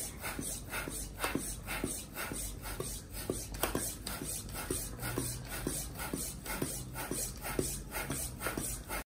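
Manual floor pump being worked in steady strokes, about two a second, each stroke a short whoosh of air pushed through the hose into an inflatable pool ring. The sound cuts off abruptly near the end.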